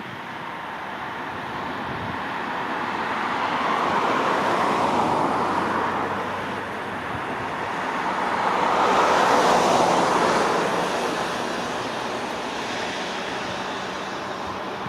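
Jet engine roar of a Boeing 787-8 Dreamliner climbing away after takeoff, a steady rushing rumble that swells twice, louder the second time about nine seconds in, then slowly eases off.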